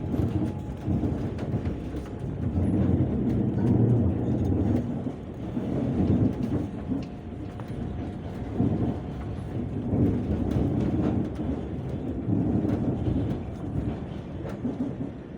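Long-distance passenger train pulling out of a station, a low uneven rumble of the carriage and wheels that swells and fades, with faint scattered clicks.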